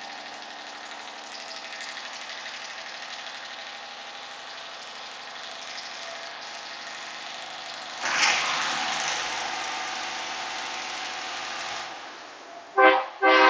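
Semi truck's engine and road noise running steadily, heard from inside the cab. About eight seconds in a louder rush swells up and fades over a few seconds. Near the end an air horn sounds once briefly, then again longer.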